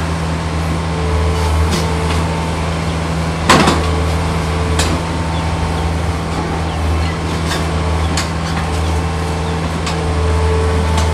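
Hitachi Zaxis 48U mini excavator's diesel engine running steadily as the arm and bucket dig, with a higher hum that comes and goes. A loud clank about three and a half seconds in, then a few lighter knocks.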